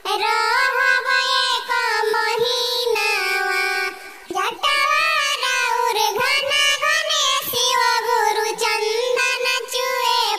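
A pitch-shifted, cartoon-high voice singing a Khortha Shiv charcha devotional song (bhajan) in long held phrases, with a short break about four seconds in.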